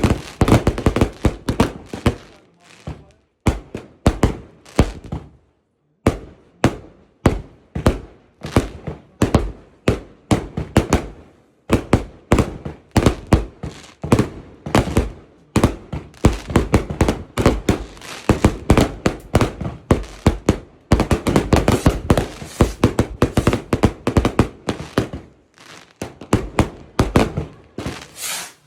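36-shot firework cube cakes firing: rapid runs of sharp bangs, several a second, broken by a few short gaps between volleys.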